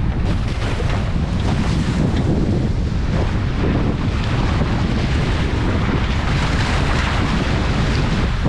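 Strong wind buffeting the action-camera microphone, over water rushing and splashing along a Tornado catamaran's hulls in heavy chop; a steady, loud, noisy din.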